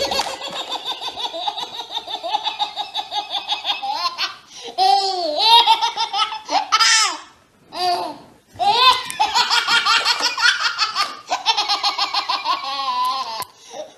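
A baby's belly laughter: two long runs of rapid, breathless laughing, with a few short, higher shrieks in between.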